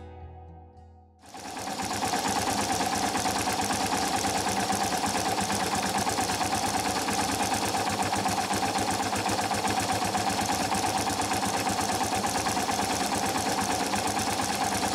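Yamaha Serow 225 single-cylinder four-stroke engine idling steadily on a Keihin PWK28 carburettor, heard from about a second in, with an even, unchanging beat.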